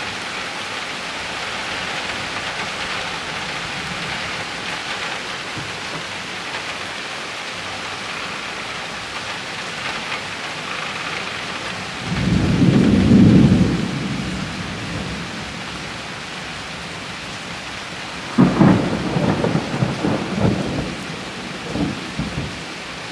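Steady rain falling, with a low rumble of thunder about halfway through. A few seconds later comes a second, crackling peal of thunder in several sharp claps that die away.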